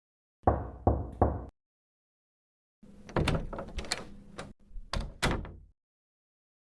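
Knocking on a wooden door: three quick knocks, then after a pause a longer, busier run of door knocks and bangs, the last two hits the loudest.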